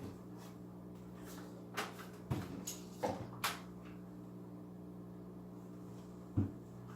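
Several short knocks and clunks of hard objects being moved and set down, over a steady low hum.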